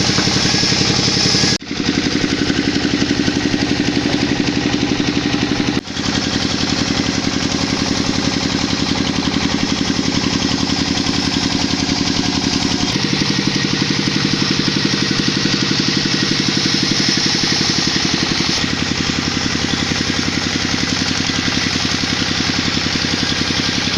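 Small vehicle engine running steadily, with two brief dropouts in the first six seconds and a couple of shifts in its note later on.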